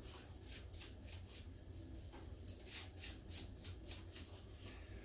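Faint small clicks and rubbing of hands handling a block plane's steel blade, the ticks thickest in the middle of the stretch, over a low steady hum.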